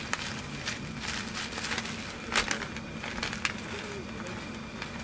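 Irregular crackling and small pops from a wood stove's fire and the pan of cheese-topped fried rice heating on it, with the sharpest pop about two and a half seconds in, over a faint steady hum.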